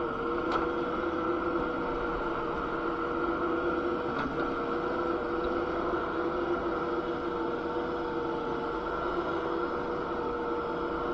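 Kubota SCL1000 stand-on compact skid steer running steadily: a constant machine hum with several held tones and no change in speed.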